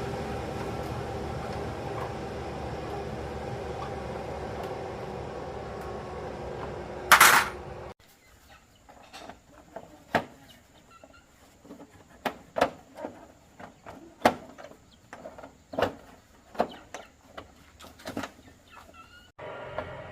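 A small motorcycle engine running steadily, with one loud burst of noise about seven seconds in. The sound then cuts to chickens clucking, with scattered sharp clicks.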